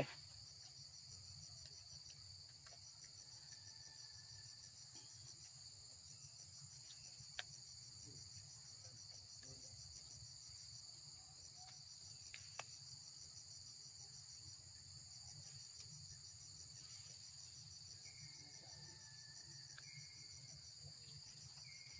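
Faint, steady chorus of insects trilling high and fast, unbroken throughout, with two soft clicks around the middle.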